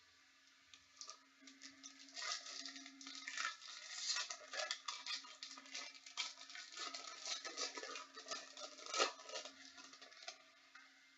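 Trading card packs and cards being handled: a dense run of crisp crinkling and rustling from wrappers and card stock, loudest about nine seconds in.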